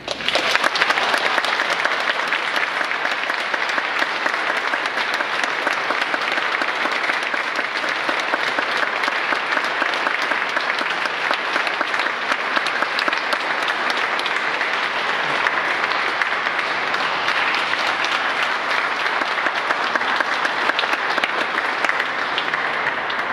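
Audience applause, breaking out suddenly and continuing steadily as a dense patter of clapping.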